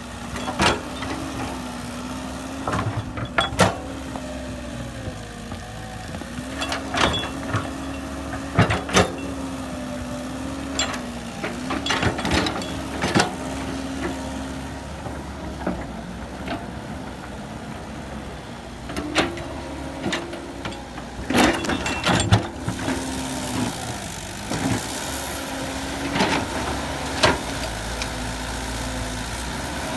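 Diesel engine of heavy earthmoving machinery working, its note dipping and rising with the load. Sharp clanks and knocks come every few seconds.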